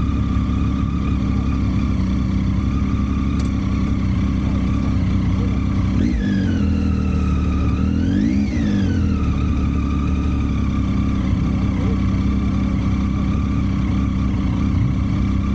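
Vehicle engine running steadily during a ride. Between about 6 and 10 seconds in, its pitch rises once and falls back, as in a rev up and back down.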